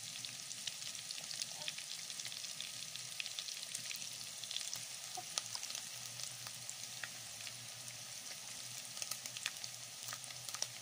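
Omena (small lake fish) frying in a generous amount of hot oil in a metal sufuria while they brown: a steady sizzle with many small crackles and pops scattered through it.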